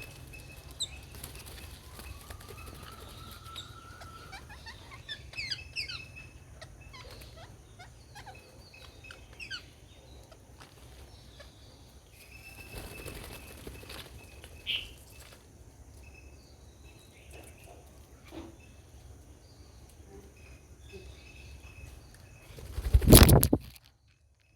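Garden birds chirping and calling in short scattered notes, with one held whistle early on, over a low steady hum. Near the end a loud rushing burst lasts about a second, then the sound cuts off abruptly.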